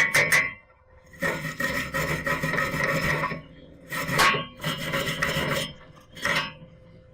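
Rasping, scrubbing strokes on metal in two long stretches, with short single scrapes between them.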